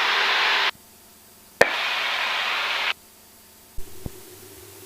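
Static hiss on a Cessna 172's cockpit intercom and radio audio feed, switching on and off abruptly. It cuts out under a second in, comes back with a sharp click about a second and a half in, and cuts out again about three seconds in. A faint low hum with a couple of small clicks follows.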